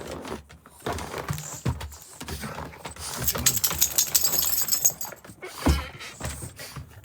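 Footsteps and shuffling, with a stretch of high metallic jingling for about two seconds in the middle and a single heavy thump near the end.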